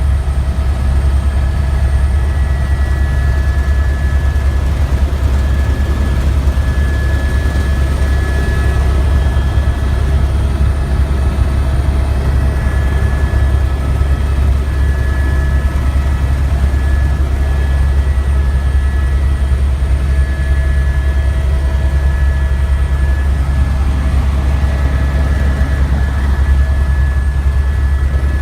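Helicopter in steady cruising flight: a loud, constant low drone with a thin, steady high whine above it.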